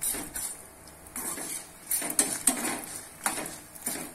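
A perforated metal spoon scraping and clinking against a stainless steel kadai in a series of uneven strokes, stirring urad dal and dried red chillies as they roast in oil; the dry grains rattle under the spoon.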